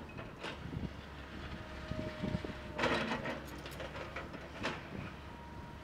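Tracked hydraulic excavator running with a steady low engine drone, with metal clanks and rattles a few times, the loudest cluster about three seconds in.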